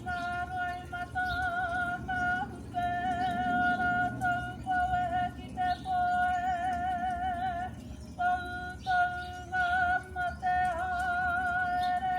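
A woman's karanga, the high ceremonial call that opens a Māori pōwhiri: long held notes with a wavering pitch, sung in phrases broken by short breaths. Near the end a second voice overlaps.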